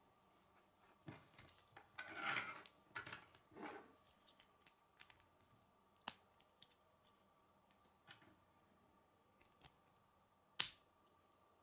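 Plastic K'nex pieces handled and snapped together by hand: rustling and light clicking, then two sharp snaps, one about six seconds in and a louder one near the end, as a connector clicks into a gear.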